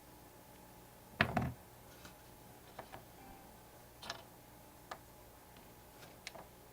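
Light clicks and taps of small model-car parts and tools being handled on a workbench. The loudest is a short cluster of knocks about a second in, followed by scattered single clicks.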